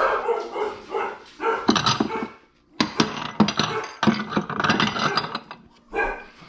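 Dogs barking in repeated loud bursts, worked up and freaking out.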